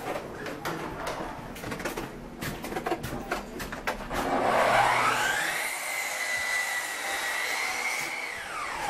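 Scattered knocks and clicks, then about four seconds in an electric power tool's motor whines up to speed, runs steadily for about four seconds and winds down near the end.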